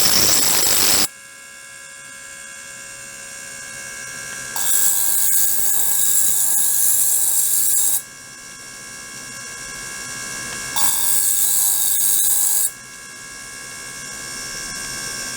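Small liquid-circulation pump and ultrasonic equipment running with a steady multi-tone hum. It is broken three times by loud hissing, rushing noise lasting one to three seconds, at the start, about five seconds in and about eleven seconds in.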